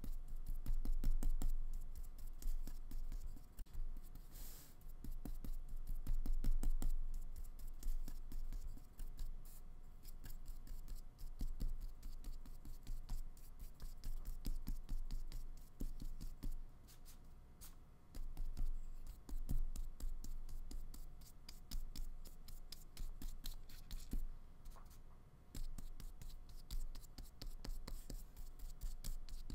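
A flat paintbrush scratching and dabbing acrylic paint onto paper and mixing it on a paper palette: a quick, uneven run of short bristle strokes that swells and fades.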